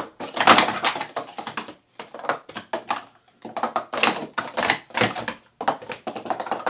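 Hard plastic sport stacking cups clattering as they are rapidly stacked up and collapsed down on a mat: quick bursts of clicking with brief breaks between sequences.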